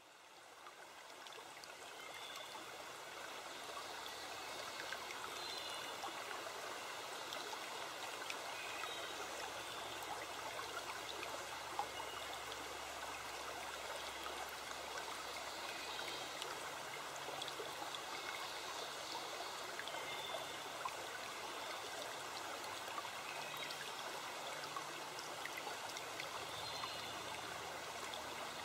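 Steady rush of flowing water, like a stream, fading in over the first few seconds and then holding even.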